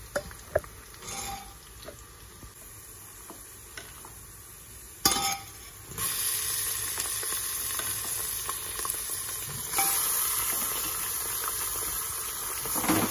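Raw beef keema going into hot oil and fried onions in an aluminium pressure cooker. For the first few seconds there is only faint frying with a few light ladle clicks. About five seconds in the meat hits the oil with a sudden hiss, then a steady sizzle sets in and gets louder about ten seconds in.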